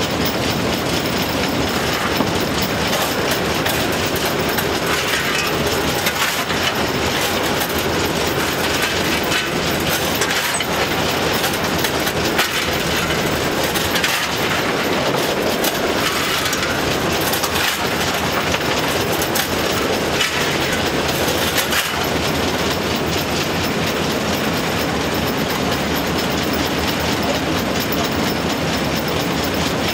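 Steam locomotive 423.0145 under way, heard from its cab: a steady, loud mix of running noise and the clatter of wheels on the rail joints, with faint knocks here and there.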